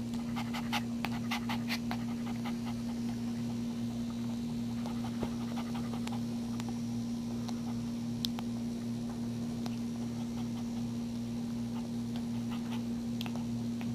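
Maltese mother dog panting over a steady low hum, with quick soft clicking in the first two seconds and now and then after, as a newborn puppy suckles at her teat.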